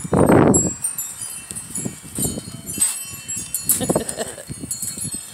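Wind chimes ringing, with scattered high tinkling notes throughout. A brief louder burst right at the start and another about four seconds in stand out over them.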